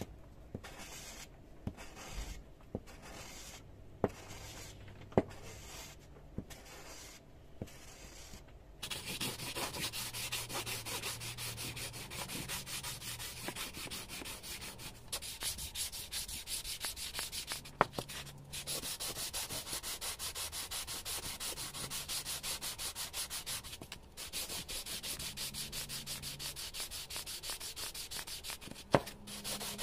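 The metal body of an old bubble level being rubbed back and forth by hand on silicon carbide sandpaper. For about the first nine seconds the strokes come one at a time with short pauses; after that it becomes a steady, fast scraping with a few short breaks and a few sharp knocks.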